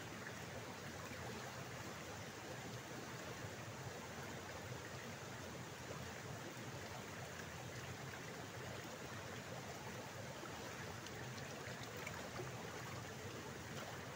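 Shallow water running steadily down a narrow stone-walled channel, a faint, even rushing.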